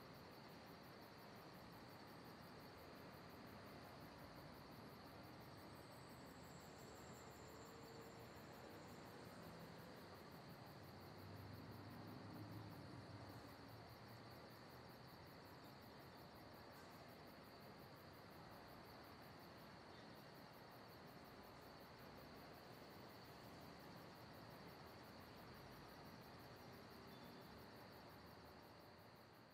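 Near silence: faint night ambience with a steady high trill of crickets. A faint low rumble swells briefly about twelve seconds in.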